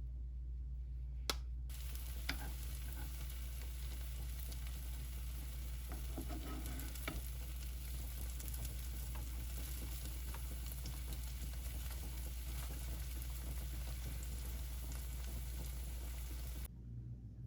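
Food sizzling as it fries in a pan: a steady hiss that starts about two seconds in and cuts off abruptly near the end, with a few light clicks and taps along the way.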